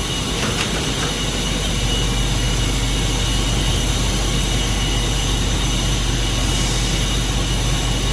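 Water and steam blowing out of an opened valve on a steam heat exchanger line: a steady, unbroken rush as the line is flushed clear of condensate.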